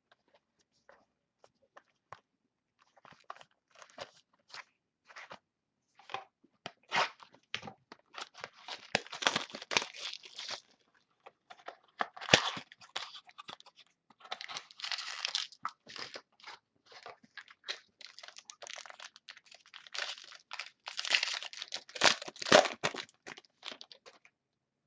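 A trading-card mini box being opened by hand: irregular crinkling, crackling and tearing of the packaging, coming in flurries that are loudest about nine, fifteen and twenty-two seconds in.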